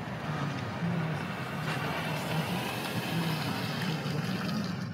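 Car driving along a road, heard from inside: steady road and engine noise.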